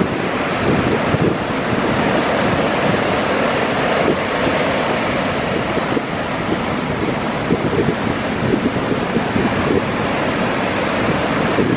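Ocean surf washing onto a sandy beach in a steady rush, with wind buffeting the microphone.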